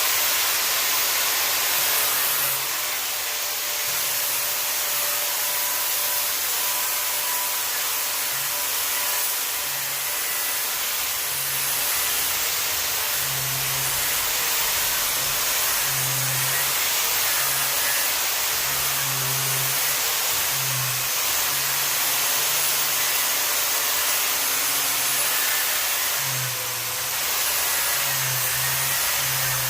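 Angle grinder with a flap disc running continuously as it grinds rust scale and mill scale off a steel welding table top.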